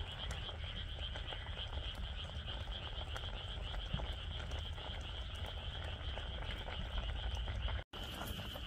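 Frog chorus: a steady, high-pitched trilling over a low rumble. It cuts out for an instant near the end.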